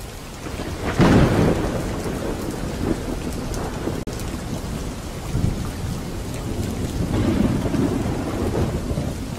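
Thunderstorm sound effect: steady rain with thunder rumbling, loudest about a second in and swelling again near the end.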